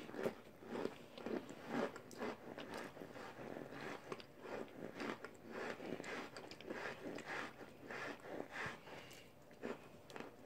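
Mouth chewing baked chunks of Argo laundry starch and cornstarch in a steady run of crunchy, squeaky bites, about two a second.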